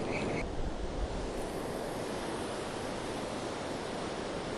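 Ocean surf washing steadily up a sandy beach, with some wind on the microphone.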